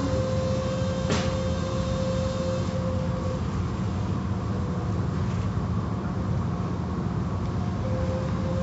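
Automatic car wash heard from inside the car: water spraying and cloth washers sweeping over the body, over a steady low rumble of machinery. A hum comes and goes, and there is a single knock about a second in.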